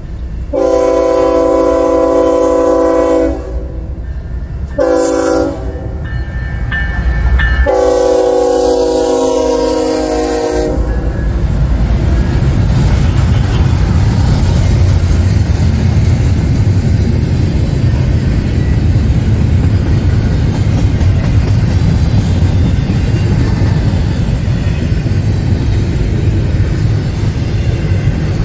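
Freight locomotive's air horn, several tones at once, sounding a long blast, a short one and another long one as the train approaches. Then the steady rumble and rail clatter of a double-stack intermodal container train rolling past.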